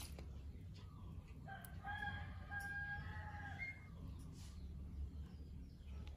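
A rooster crowing once: a single long call of about two seconds, starting about a second and a half in, over a steady low rumble.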